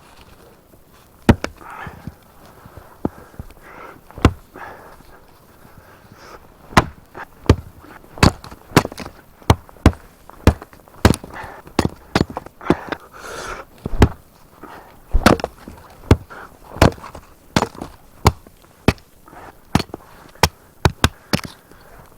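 A long irregular run of sharp chopping strikes, about one a second, with softer scraping between some of them.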